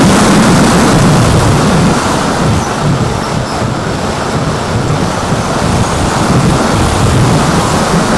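Rushing wind noise on the onboard camera of a small electric RC foam plane in flight, over the drone of its motor and propeller. It eases a little about two seconds in and builds again later.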